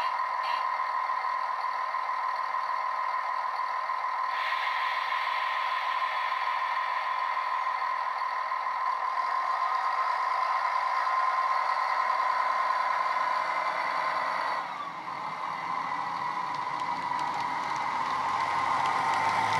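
Diesel multiple unit engine sound from a model Class 170's DCC sound decoder, played through small speakers. It idles steadily, turns brighter about four seconds in, then dips and builds again in the last few seconds as the unit pulls away.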